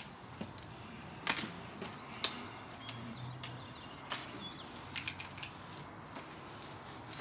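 Quiet outdoor ambience with a few brief, faint bird chirps near the middle. Scattered light clicks and crinkles come from food being picked at and handled on a takeaway tray.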